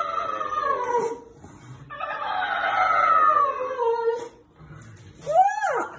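Dog making long, high, wavering whining howls that sound like an elephant's trumpeting: one call ends about a second in, a longer one slides down in pitch, and a short rising-and-falling yelp comes near the end.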